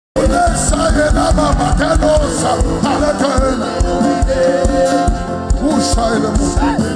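Live worship music: a voice singing a melody over a band with a steady bass and drum beat, cutting in abruptly right at the start.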